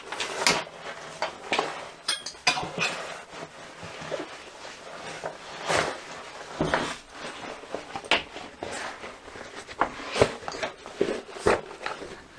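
A 500D Cordura haversack bag handled and turned around on a table: irregular fabric rustling with scattered small knocks and clicks.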